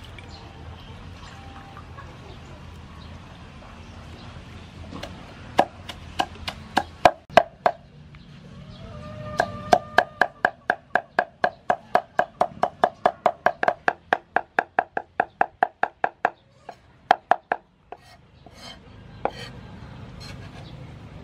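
Cleaver chopping dried red sweet peppers on a thick round wooden chopping block. A few scattered chops come first, then a quick, even run of about four chops a second, then a few last strokes.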